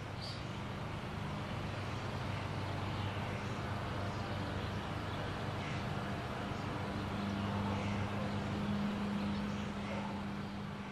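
A steady low rumble and hiss with a faint hum, growing a little stronger in the second half before starting to fade near the end.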